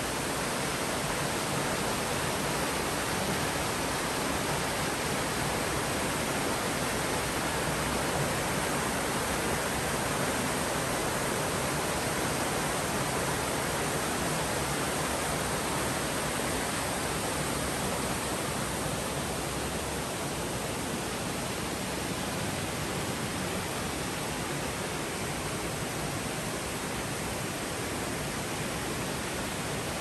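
Steady rush of a small forest stream cascading over rocks.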